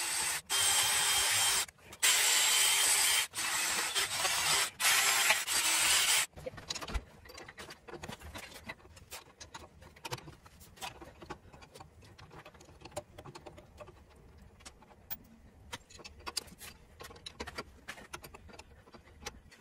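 A cordless power tool scours a rusty cast-iron circulator pump flange in several runs for about six seconds, cleaning it down. After that come scattered metal clicks and scrapes from a wrench on the flange bolts.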